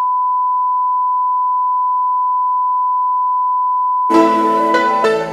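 Steady single-pitch test-tone beep of the kind played with TV colour bars. Instrumental music comes in about four seconds in, and the tone stops about a second later.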